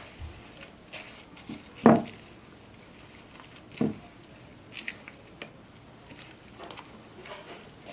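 Slime being handled and mixed: scattered soft squishes and small clicks, with two louder squelches about two and four seconds in.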